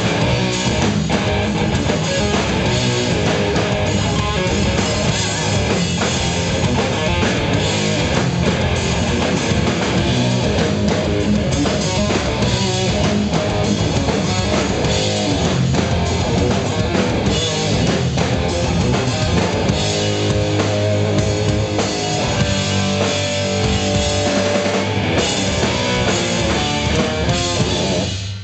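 Live hard rock band playing loud: distorted electric guitar, electric bass and drum kit, heard from the audience. The song stops at the very end.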